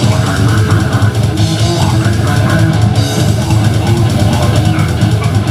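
A heavy metal band playing live: electric guitar riffing over a drum kit, loud and continuous.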